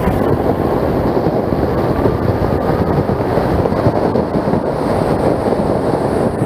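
Wind buffeting the microphone of a camera riding along on a mountain bike off-road, a steady loud rumbling rush.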